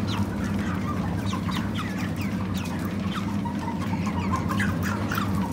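A flock of 37-day-old Cobb 500 broiler chickens calling, with many short peeps and clucks that fall in pitch, over a steady low hum.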